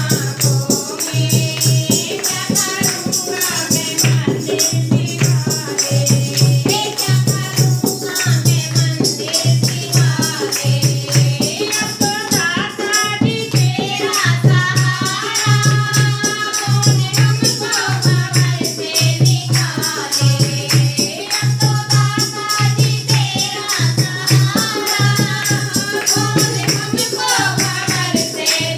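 Devotional bhajan sung by a small group of women, with a dholak barrel drum keeping a steady beat, a hand-held jingle clapper rattling along, and hand clapping.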